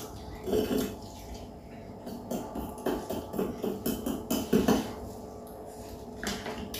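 Chopsticks and spoons clinking and scraping against porcelain plates and bowls while people eat, a scatter of short sharp clicks.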